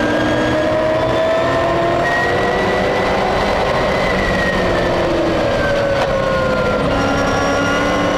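Race truck's engine at racing speed, heard from inside the cab. The engine note climbs steadily for about four seconds, falls off for a few seconds, then climbs again near the end. There is one brief knock about six seconds in.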